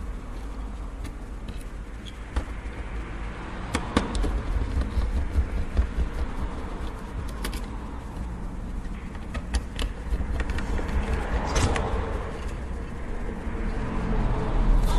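Small metallic clicks and taps as a small Phillips screwdriver works the tiny black screws out of a PS3 Blu-ray drive's casing and the screws are handled, busiest in the middle, with a brief scrape a little before the end, over a steady low rumble.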